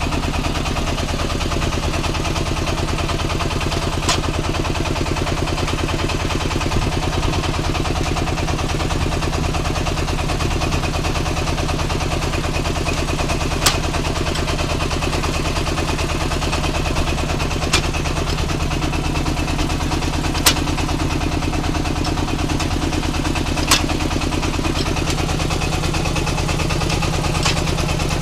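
Engine-driven red-clay brick-making machine running steadily, with a sharp clack every few seconds.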